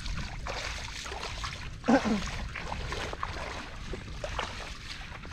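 Water splashing and trickling over a low rumble of wind on the microphone, with scattered small clicks; a brief voice-like cry about two seconds in is the loudest moment.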